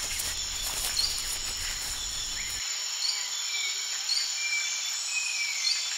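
Steady chorus of insects trilling in bushland, with short high chirps every second or so. A low rumble underneath drops away about two and a half seconds in.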